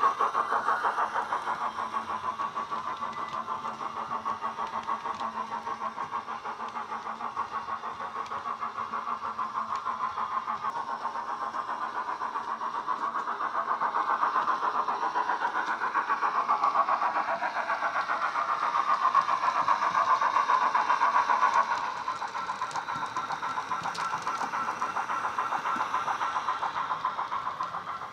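Hornby BR Standard Class 9F 2-10-0 model steam locomotive's DCC sound decoder (Wheeltappers sound file) playing steam exhaust chuffs through the model's small speaker as it runs, a quick, even beat. It gets louder for a stretch in the middle and drops back about twenty-two seconds in.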